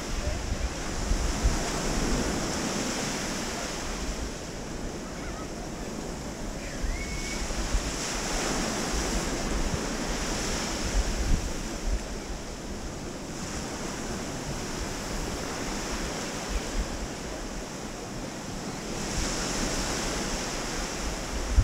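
Small waves washing onto a sandy shore in a steady wash that swells every few seconds, with wind buffeting the microphone.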